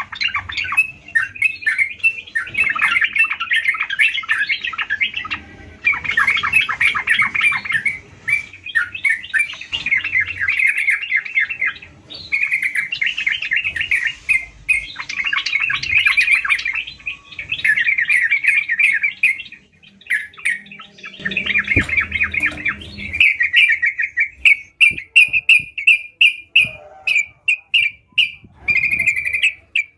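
Yellow-vented bulbul (trucukan) singing loudly: fast chattering phrases of one to two seconds with short breaks between them. Near the end it gives a string of short, evenly spaced notes, about three a second.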